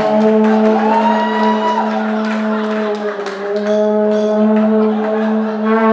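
A vuvuzela blown in one long, steady, buzzing drone, with a little waver in pitch. Faint crowd noise runs behind it.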